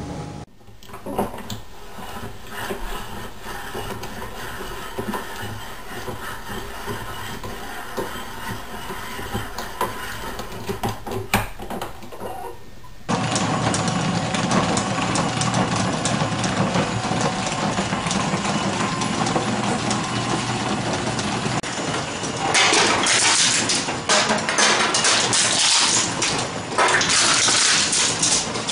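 Wooden gears turning in mesh: a steady mechanical whirr with rapid clicking of the teeth. About halfway through the sound changes abruptly to a louder, noisier run, which grows louder again near the end.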